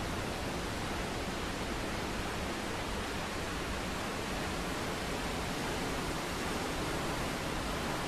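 Mountain waterfall: water falling and rushing as one steady, even noise, with no breaks or changes.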